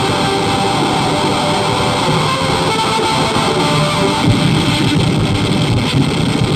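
A dense, unchanging wall of heavily distorted noise played loud through a Laney guitar amplifier and speaker cabinet, with no breaks or rhythm.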